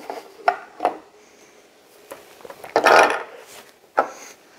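Plastic LEGO pieces clicking and clattering as they are handled and snapped together: a few short sharp clicks, with a louder burst of clatter about three seconds in.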